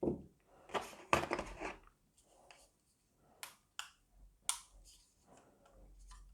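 Unboxing handling noises: a rustle of packaging about a second in, then a few short, sharp plastic clicks as the doorbell parts are handled.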